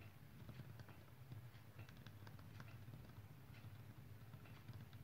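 Lightning L Drago Beyblade with a 100 Hole Flat tip spinning in a plastic stadium: a faint steady low hum with light, irregular ticking.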